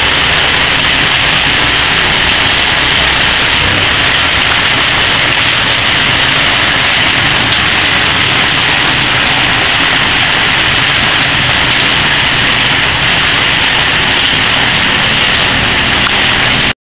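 Heavy tropical rain pouring down in a loud, steady hiss that cuts off suddenly near the end.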